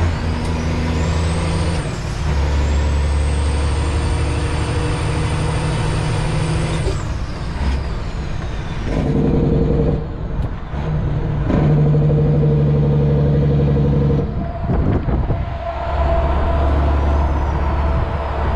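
Freightliner Classic semi truck's Detroit diesel engine, heard from inside the cab, running under load. Its note changes in steps several times, typical of gear changes. A high turbo whistle rises over the first few seconds and then cuts off.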